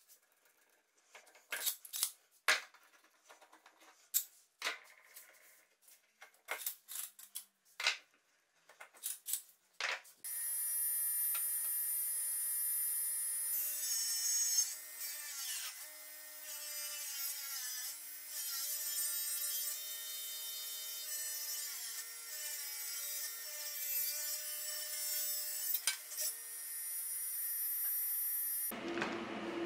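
Sharp clicks and knocks of bar clamps and wooden boards being handled, then, about a third of the way in, a table saw starts and runs steadily, its pitch wavering as it rips wooden boards.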